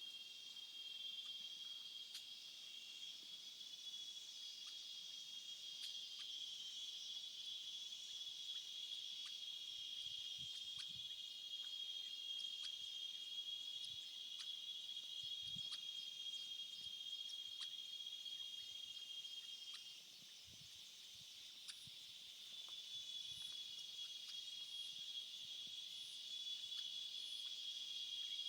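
Steady high-pitched insect chorus that drones without a break. It drops away for a few seconds about two-thirds of the way through, then comes back.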